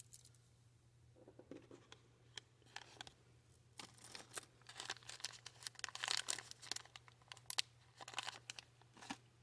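Bead packaging being handled, crinkling and rustling in irregular bursts.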